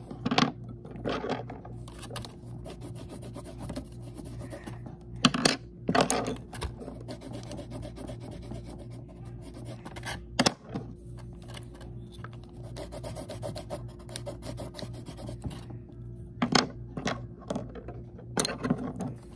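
Colored pencil scribbling rapidly back and forth on paper, a fast scratchy rubbing, with several louder knocks now and then.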